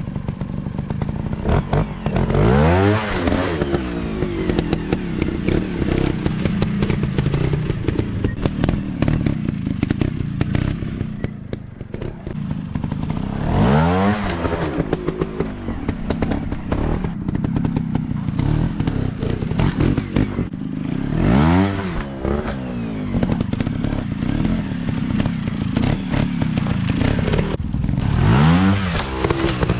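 Dirt bike engines running, with the revs rising and falling back four times. Scattered knocks and clatter run alongside.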